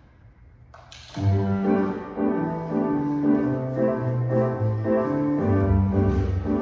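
Instrumental music starts about a second in, with held notes over a moving bass line.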